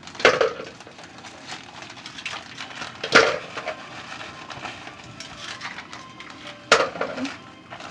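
A bag of brown sugar rustling and crinkling as it is handled and poured from, with three louder knocks spaced about three seconds apart.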